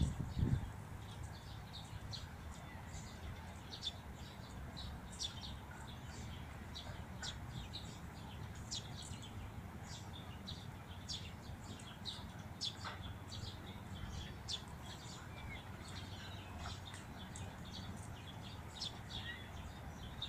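Small birds chirping, many short high chirps, over a steady low rumble. A brief low thump about half a second in.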